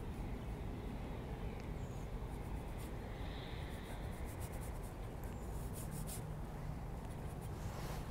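Oil-paint brush scratching over a painting panel in faint, irregular strokes, over a steady low background rumble.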